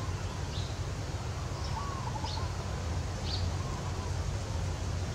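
A steady low rumble and hiss, with four faint, short bird chirps spread over the first three and a half seconds.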